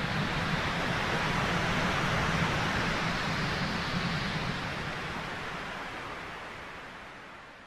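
Steady rushing noise effect with a low hum under it, fading out gradually over the last few seconds.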